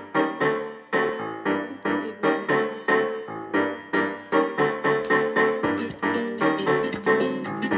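Background music: a piano or electric keyboard playing a steady rhythmic pattern of struck notes.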